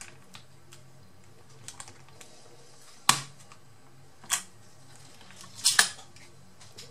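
Small clicks and taps from a laptop's metal heatsink and fan assembly being handled, set down and lifted on the motherboard while seating it on fresh thermal paste. Three sharper clicks stand out, about three, four and a half, and nearly six seconds in, with a faint steady hum underneath.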